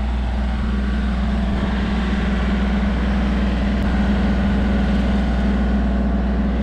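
Kubota compact tractor's diesel engine idling steadily, an even low hum with no revving.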